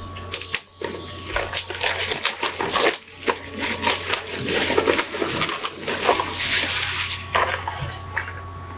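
Cardboard box of hockey card packs being opened and the wrapped packs pulled out and handled: irregular rustling and crinkling that dies down near the end, over a steady low hum.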